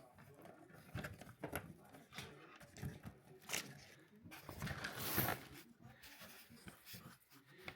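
Faint scattered clicks and rustling from a wiring connector and its small cables being handled, with a louder rustle about five seconds in.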